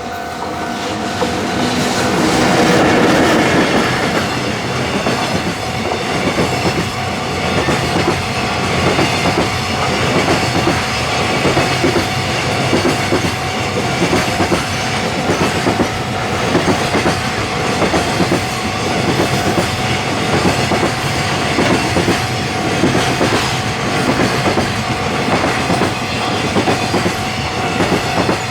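Japanese level-crossing warning bell ringing in a steady two-note tone, soon buried as an electric locomotive passes about two to four seconds in. A long train of container wagons follows, its wheels clattering rhythmically over the rail joints.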